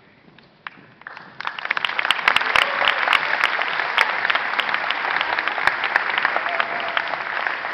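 Audience applause that breaks out about a second in and quickly builds to steady, loud clapping from many hands.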